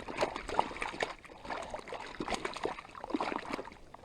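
Water splashing and dripping close by in irregular small splashes, fading toward the end.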